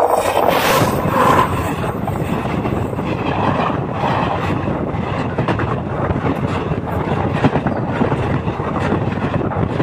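A train rolling directly over the microphone: a loud, steady rumble of steel wheels on the rails with repeated clacks as the locomotive and then the wagons pass overhead.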